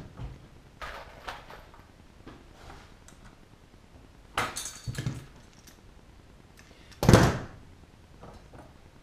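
Sharp clacks of hand tools and aluminium parts knocked against a wooden workbench while riveting a wing rib: two about four and a half and five seconds in, and a louder one about seven seconds in.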